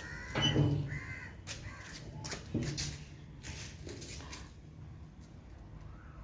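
A pet parrot's short, harsh squawks, with a heavy thud about half a second in and another knock a couple of seconds later, amid a few lighter clicks.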